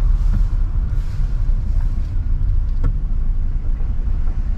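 Car driving over a damaged road surface: a steady low rumble of engine and tyres, with one short knock about three seconds in.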